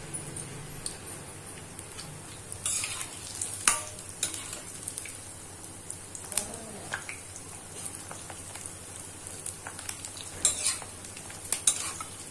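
Bread squares frying in ghee in a stainless steel kadai over a low flame: a steady gentle sizzle, with a steel ladle now and then clinking and scraping against the pan as the pieces are added and moved around.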